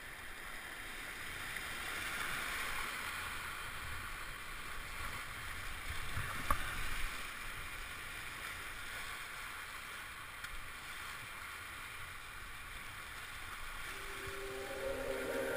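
Whitewater rapids rushing and splashing around a kayak, heard close up from the boat, with a single sharp knock about six and a half seconds in. Music fades in near the end.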